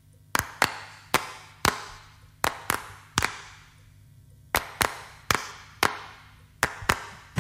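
Percussion in a background music track: about a dozen sharp, echoing claps or knocks in a loose repeating rhythm, singly and in pairs.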